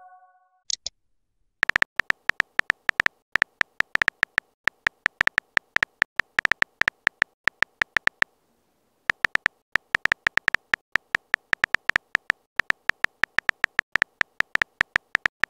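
Rapid keyboard-tap clicks of a texting app as a message is typed, about five or six a second, with one short pause about halfway through. A short high blip comes just before the typing starts.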